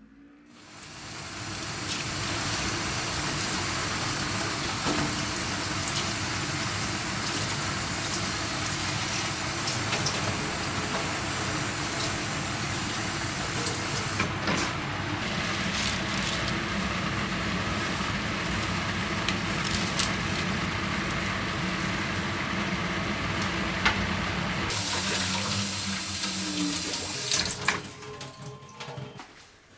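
Water running steadily from a kitchen tap into the sink, with a few small knocks, shut off near the end.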